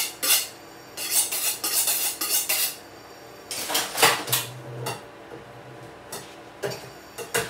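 Kitchen knife drawn quickly back and forth along a sharpening steel, a rapid run of metallic scrapes for the first few seconds. A few scattered clinks and knocks follow as the tools are handled.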